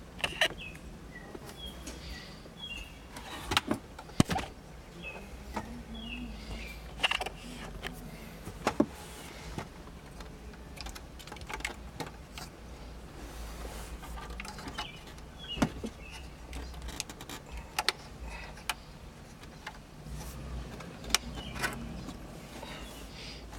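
Scattered sharp plastic clicks and knocks at uneven intervals as the side clips of a car's push-to-start button are pressed and worked loose.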